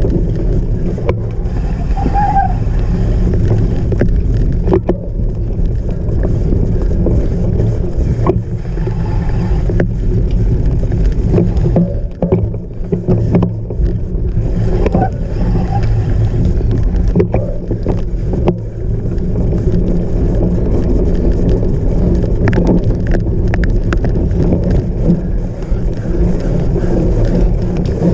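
Cyclocross bike riding over rough off-road ground: a heavy, steady rumble of wind and motion on the microphone, with frequent short rattles and knocks from the bike.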